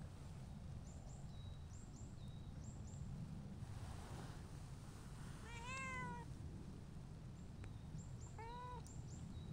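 A cat meowing twice: a longer meow a little past the middle and a shorter one near the end, each rising and then falling in pitch.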